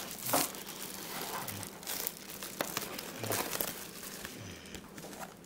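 White packing wrap crinkling and rustling as hands pull it open to unwrap an item, in irregular crackles with one louder crackle just after the start, quieter toward the end.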